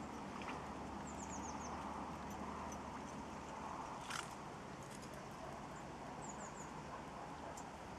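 Outdoor ambience: a steady low hiss, with two quick runs of four faint, high, falling chirps, about a second in and again about six seconds in, and a single sharp click just after four seconds.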